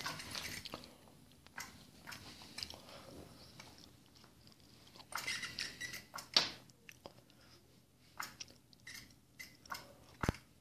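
A cat scratching, pawing and biting at the nylon cover of a Cat's Meow motorized cat toy: irregular rustling and scratching with small clicks, louder near the start and again about five to six seconds in.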